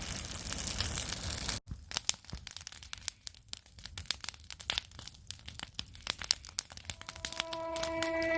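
Bushfire crackling and hissing, cut off abruptly about a second and a half in. Scattered sharp crackles and rustles follow, and from about seven seconds in an alarm clock's steady electronic tone fades in and grows louder.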